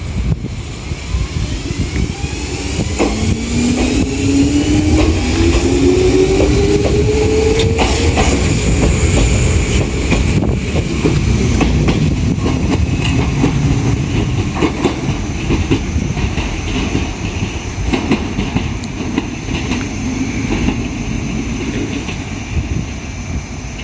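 Enshu Railway 1000-series electric train pulling away, its motor whine rising in pitch over the first several seconds as it accelerates, then wheels clattering over rail joints with a steady running rumble.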